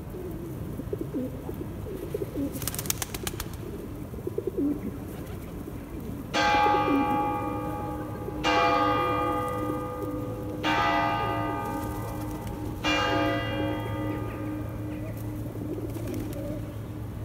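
A church bell strikes four times, about two seconds apart, each stroke ringing on and fading under the next. Pigeons coo in the background, with a brief rapid clatter a few seconds in.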